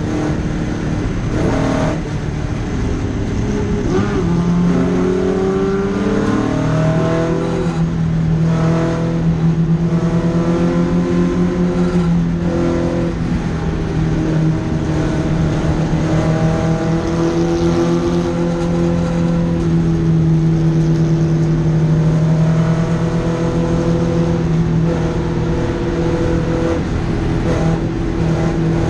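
Datsun Fairlady 2000 (SR311) roadster's two-litre straight-four revving hard on track. Its pitch climbs and drops back at each gear change several times in the first dozen seconds, then holds fairly steady for long stretches.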